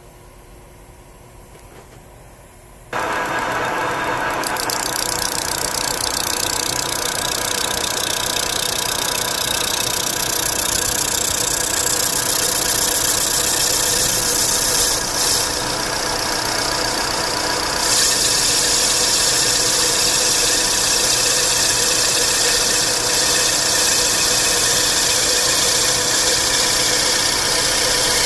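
Manual metal-turning lathe starting up about three seconds in, then running steadily with a hum of several steady tones and a hiss.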